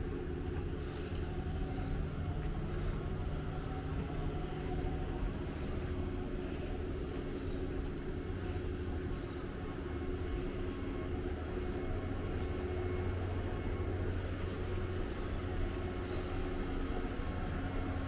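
A steady low engine hum with a constant pitch, running without a break or change in loudness.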